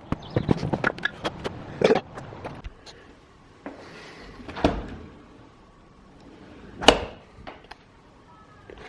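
Scattered knocks, clicks and clatters of objects being handled, with a quieter stretch in the middle; the loudest is a single sharp knock about seven seconds in.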